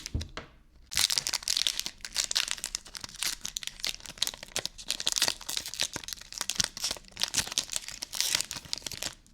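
Pokémon booster pack's foil wrapper crinkling and tearing as it is opened by hand: a dense run of crackles that starts about a second in and stops abruptly near the end.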